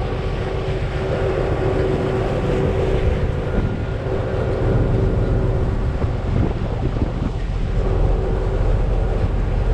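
Large party boat's engines running steadily underway, a constant low drone with a steady hum over it, and wind buffeting the microphone.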